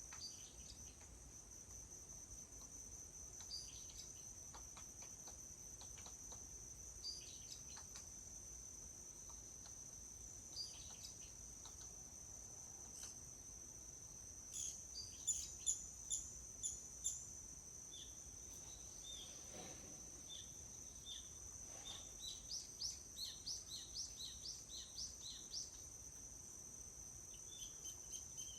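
Forest ambience: a steady high-pitched insect drone with birds chirping throughout. A run of about six louder notes comes about halfway, and a quicker series of a dozen or so notes follows later.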